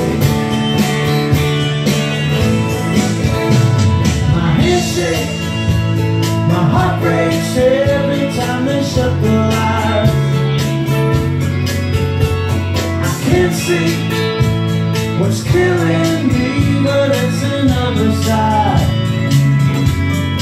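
Live acoustic music: guitars strummed steadily while a man sings a song.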